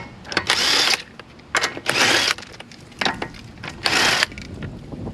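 Impact gun spinning lug nuts off a car's front wheel in four short bursts of about half a second each, with small clicks between them.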